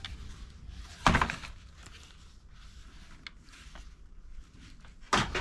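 Plastic toy gun being handled and turned over: a loud knock about a second in, a few faint clicks, then a cluster of knocks near the end.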